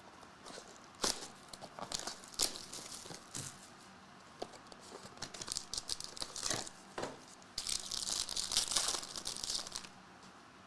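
Trading card pack wrappers being torn open and crinkled, with sharp clicks and crackles from the packaging and cards being handled, and a longer stretch of tearing about three-quarters of the way through.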